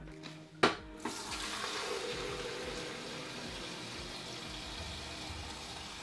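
Kitchen tap running water into a plastic jug to fill it, steady to the end, after a single sharp knock a little over half a second in.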